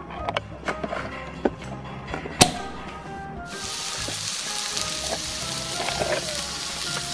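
Plastic toy cooking pot and lid clicking and knocking, one sharp click about two and a half seconds in. From about three and a half seconds in, a steady frying-sizzle sound effect plays over background music.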